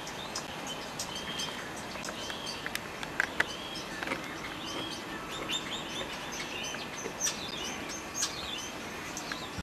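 Small birds chirping and twittering, many short high calls overlapping one another, with two sharp clicks a little after three seconds in.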